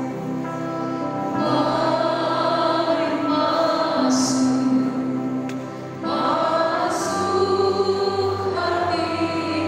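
Church choir singing a Christian worship song, with long held notes.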